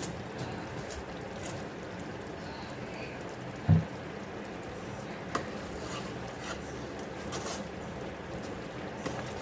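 Thick ginger mixture for aalepak cooking in a pan, under a steady low hiss with scattered small clicks, and one dull thump a little under four seconds in.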